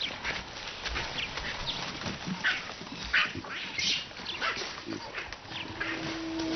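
Scattered short animal calls, a dozen or so brief cries over a steady outdoor hiss.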